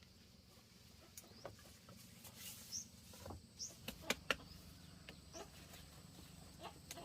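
Faint farmyard sounds: a few brief high bird chirps and scattered light clicks and knocks, with a sharper cluster of knocks about four seconds in.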